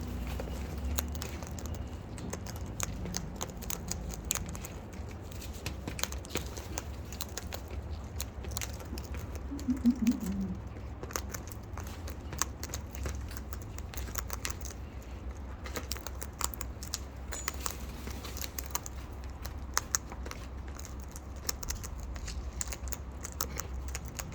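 Cockatoos and bush turkeys feeding: many scattered small clicks and crunches of beaks pecking and cracking food, with one brief low call about ten seconds in, over a steady low hum.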